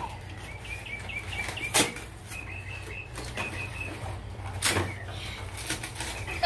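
Sharp knocks from a toy box being handled and opened, three of them, with a run of short high chirps in the first half.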